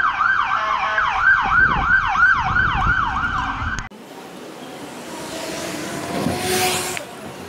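Emergency vehicle siren sounding a fast yelp, sweeping up and down about three times a second, which cuts off abruptly about four seconds in. After it comes quieter, steady street traffic noise.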